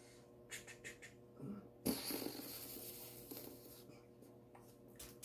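Faint rustling and scratching of handling noise, with one sharper crinkle about two seconds in that trails off over a second or so, and a few small ticks near the end.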